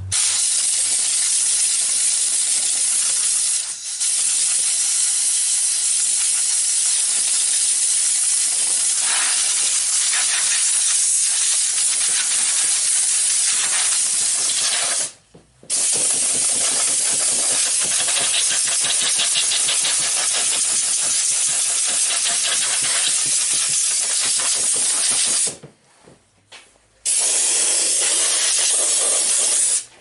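Compressed air from an air compressor's blow gun hissing loudly in long blasts as it blows dust out of an old PC case. The blast breaks off briefly about halfway through and again for a second or so near the end.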